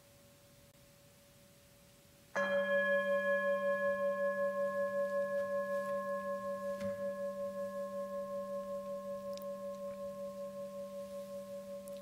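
A bell struck once about two seconds in, ringing on with a slow wavering as it fades, marking the end of a time of silent prayer.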